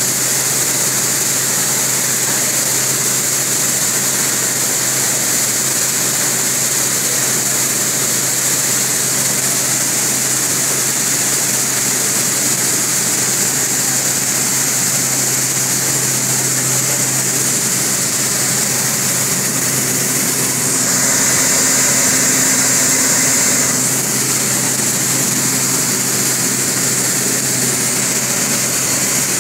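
Five-fan gravity separator running: a steady mechanical hum under a strong airy hiss from its fans, briefly louder about two-thirds of the way through.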